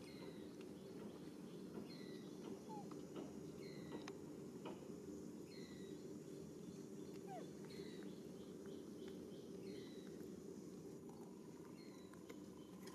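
A bird repeating a short, high, falling chirp every second or two over a steady low hum.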